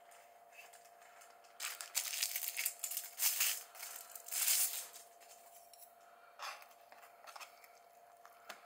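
Packaging being torn and crinkled close by for about three seconds, then a couple of shorter rustles; a faint steady hum runs underneath.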